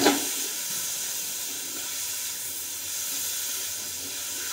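Mushrooms, zucchini and pak choi sizzling in a hot wok over a full gas flame as they are stir-fried, a steady, even hiss.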